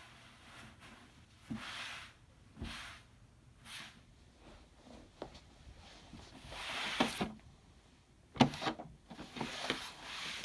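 Handling noises from working on a desktop computer case: scattered rubs and scrapes, then a cluster of sharp knocks and clicks about eight seconds in.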